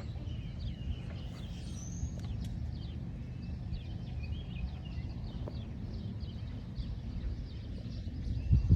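Many small birds chirping over a steady low rumble, with a brief louder low thump near the end.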